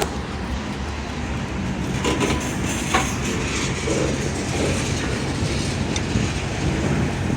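Freight train cars rolling slowly past, a steady rumble with occasional wheel clacks over the rail joints.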